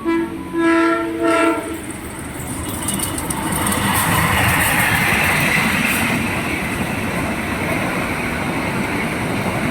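KRL Commuterline electric commuter train sounding two short horn blasts, then running past with a swelling rush of wheel and rail noise that peaks in the middle and eases off toward the end.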